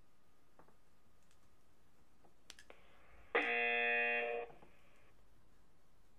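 A single buzzer-like tone, steady and about a second long, played through the small speaker of a programmable electronic moo box, after a few faint clicks.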